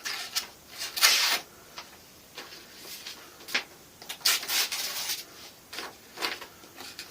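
A folding knife's blade slicing through a sheet of paper in a few short cuts, each a brief hiss. The longest comes about a second in, with more around four to five seconds in and small paper rustles between.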